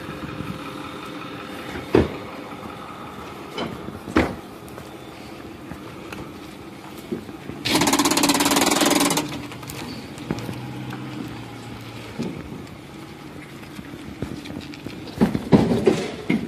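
Truck engine idling steadily, with a few sharp knocks and a loud rushing burst about eight seconds in that lasts a second and a half.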